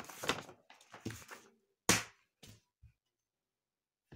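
Small objects being handled and set down on a tabletop: paper rustling, then a sharp thunk about two seconds in, followed by two smaller knocks.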